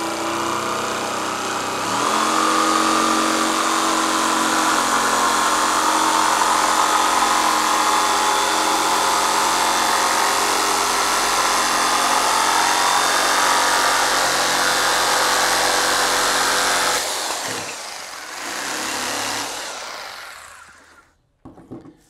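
Electric jigsaw (saber saw) cutting through a cedar board, running steadily and picking up speed about two seconds in. It stops about seventeen seconds in, runs again briefly, then winds down near the end.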